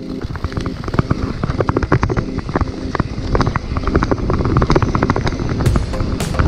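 Full-suspension Dartmoor Blackbird mountain bike riding down a rough trail: a rapid, irregular clatter of tyres hitting rocks and roots, the chain slapping, and the bike rattling over a low wind rumble.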